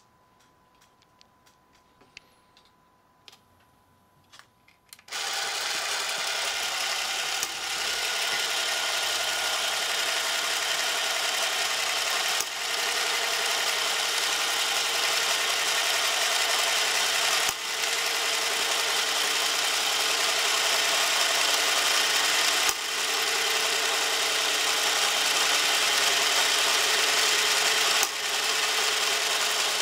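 Keystone A-7 16 mm movie camera's spring-wound clockwork motor running: a steady mechanical whir that starts suddenly about five seconds in, after a few faint clicks, with short dips every five seconds or so.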